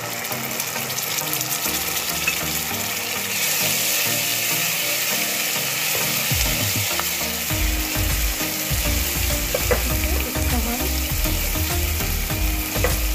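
Blended onion paste with freshly added ginger-garlic paste sizzling in hot oil in a pan, with a spoon stirring and scraping against the pan. The sizzle grows louder a few seconds in, and irregular stirring knocks start about halfway through.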